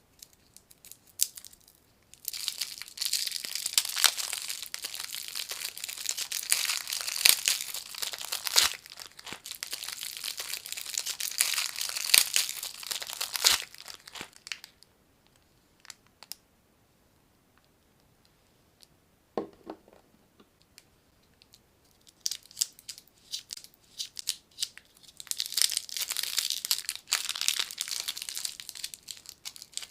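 Candy wrappers crinkling and tearing as sweets are unwrapped by hand. The crinkling comes in two long stretches with a pause of several seconds between them, and a single soft knock falls in the pause.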